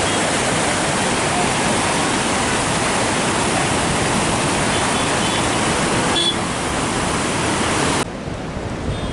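Steady rushing of a river in flood, a dense even hiss of water. The sound cuts abruptly about six seconds in and again about eight seconds in, quieter after the second cut.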